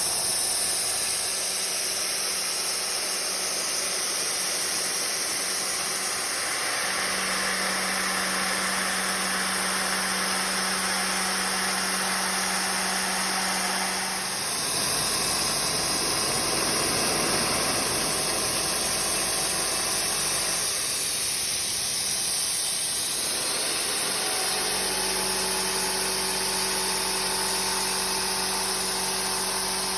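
CNC milling machine running while it machines a block of D2 tool steel: a steady spindle and cutting hum over a high hiss. The hum steps up about seven seconds in, drops away around the middle, and returns near the end.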